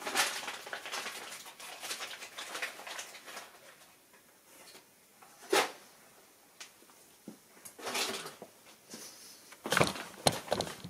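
Rustling and handling noise from hands working on an engine wiring harness, with a single sharp click about halfway through and a short run of clicks and knocks near the end.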